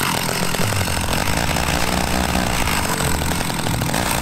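Echo 440EVL two-stroke chainsaw engine running steadily.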